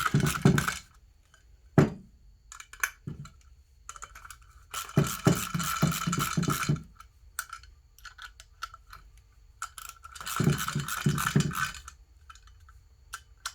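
Socket wrench and Allen wrench tightening the 6 mm bolts and lock nuts of a two-piece wheel: three spells of rapid metal clicking, with a few single clinks between.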